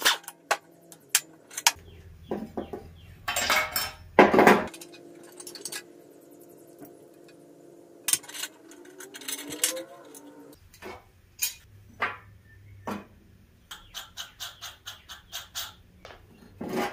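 Metal clinks and knocks of idler pulleys, nuts and brackets being handled and pulled off a steel mower deck. There are two louder short bursts about three to four seconds in, and a quick run of clicks near the end.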